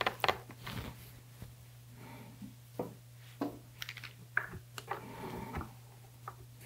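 Scattered light clicks, taps and scrapes of screws being handled and started with a hand screwdriver as a speaker driver is fastened into its cabinet, over a steady low hum.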